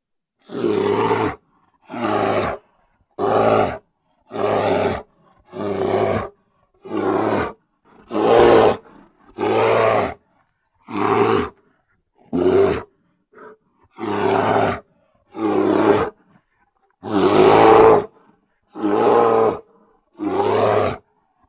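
Grizzly bear roaring: about fifteen short roars, each under a second long, one after another every second or so with silent gaps between.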